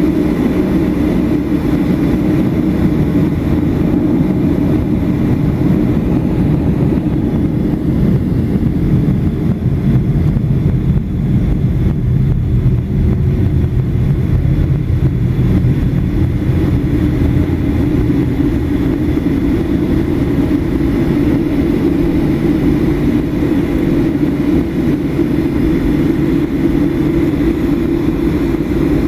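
Cabin noise of a Boeing 737-800 taxiing: its CFM56-7B turbofan engines at low taxi thrust and the rolling airframe make a steady low rumble and hum.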